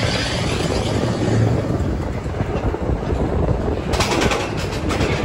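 Seven Dwarfs Mine Train roller coaster train running with a steady rumble, and a rapid run of clacks near the end.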